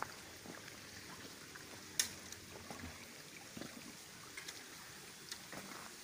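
Footsteps through leaf litter and undergrowth, about one step a second, with one sharper crack about two seconds in, over a faint steady hiss.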